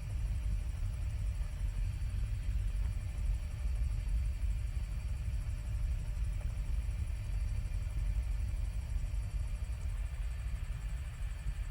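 Helicopter in flight: a steady low rumble of rotor and engine noise with no pauses.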